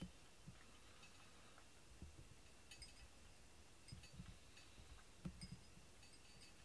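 Near-silent room with a few faint, scattered clicks and soft taps from a cat with its head down in its bowl.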